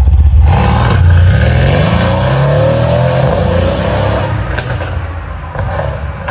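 Mercedes-AMG C63 S's twin-turbo V8 accelerating with its exhaust valves held fully open, the engine note climbing in pitch, then easing off and growing quieter toward the end, with one sharp crack about four and a half seconds in.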